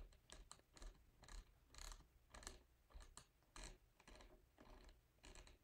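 Near silence: room tone with faint, short ticks about twice a second.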